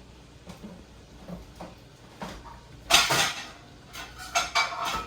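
Kitchen clatter of dishes and utensils: a few soft knocks, then a loud clatter about three seconds in, followed by several ringing clinks.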